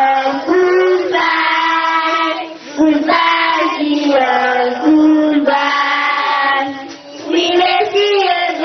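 A young girl singing into a handheld microphone in long phrases with held notes, pausing briefly twice.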